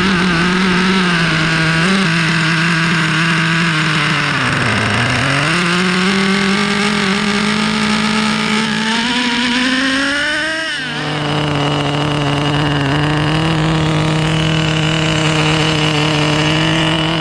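Traxxas Nitro Stampede's Pro 15 nitro engine running through an MIP Stinger exhaust pipe as the RC truck is driven. The pitch dips briefly about five seconds in, climbs steadily as the throttle opens, drops suddenly about eleven seconds in, then holds steady.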